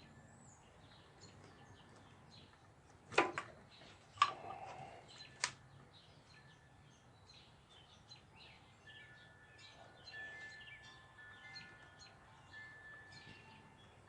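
A few sharp clicks from handling small parts, three or four of them between about three and six seconds in, over a quiet background with faint birds chirping.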